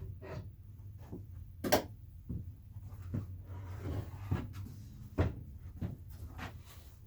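Knocks and bumps of the wolf target being flipped over and handled, with one sharp knock about two seconds in the loudest, and some rustling around four seconds in.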